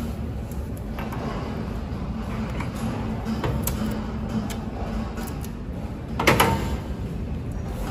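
Metal handling clatter as a film roll on its metal shaft is worked into the film-holder bracket of a packing machine, with one short, louder clunk about six seconds in. A steady low hum runs underneath.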